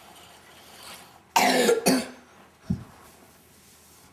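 A child coughing, two coughs close together about a second and a half in, followed by a short low throat-clearing sound.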